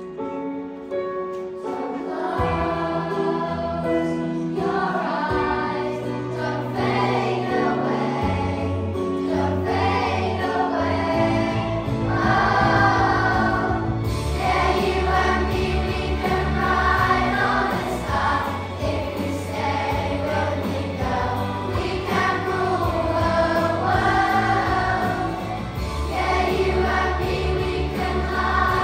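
A choir of school children singing a song together over an instrumental accompaniment, with a bass part coming in about two seconds in.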